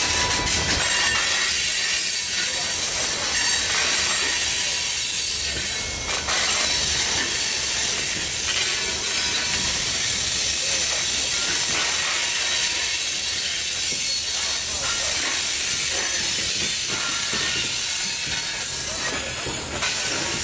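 Loaded coal hopper cars of a freight train rolling past, their wheels running on the rail with a steady high hiss over a low rumble.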